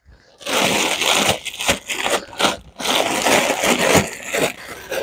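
Loud crinkling and rustling of sequined, embroidered net garments being handled and shifted close to the microphone, starting about half a second in.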